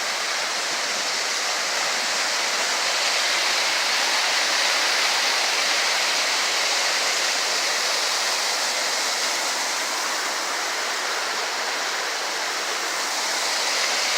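Hidden Falls, a waterfall at Hanging Rock State Park, giving a steady, even rush of falling water.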